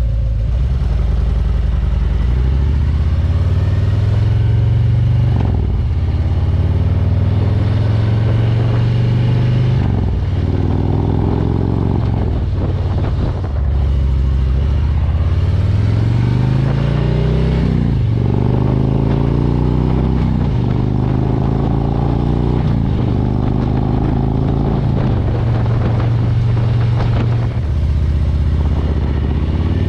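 Harley-Davidson Road Glide V-twin engine under way, its pitch climbing for a few seconds and then dropping sharply, about six times over.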